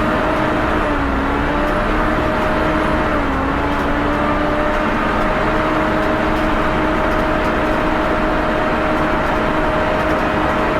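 Volvo B7TL bus's engine cooling fan running with a loud, hoover-like whine over the rumble of its diesel engine. The whine's pitch wavers a little over the first few seconds, then holds steady.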